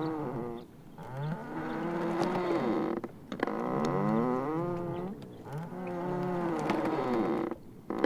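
Sea ice floes rubbing against each other, giving drawn-out pitched squeals and moans that bend up and down, in about four long strokes with short breaks between them.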